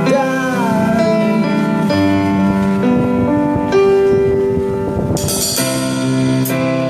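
Instrumental band music: sustained keyboard chords with a sliding melody line in the first second, and sharp cymbal strikes about five seconds in.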